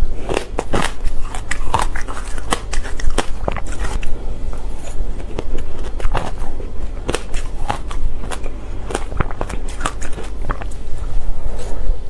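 Close-miked crunching and chewing of powdery shaved ice with passion fruit pulp: many irregular sharp crunches, one after another. A metal spoon scoops ice from a metal bowl between mouthfuls.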